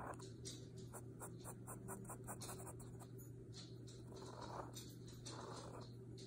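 Felt-tip marker scratching on lined paper in quick short hatching strokes, thinning to a few longer strokes in the second half. A faint steady hum runs underneath.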